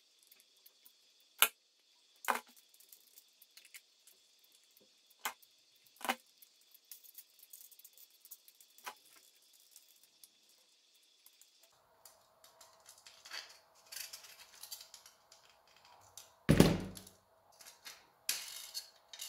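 Scattered small clicks and taps of needle-nose pliers and thin aluminium wire being twisted onto a wooden skewer, with a louder knock about three-quarters of the way through as the pliers are set down on the cutting mat.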